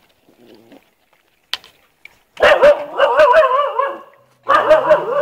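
Stray puppies whining and yelping in high, wavering cries, in two loud bouts starting about halfway through.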